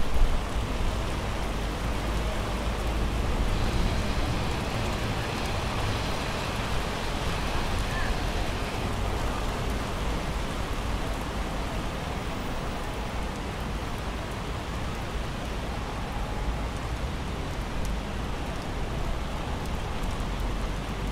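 Steady rain falling, a constant even hiss with a low rumble underneath.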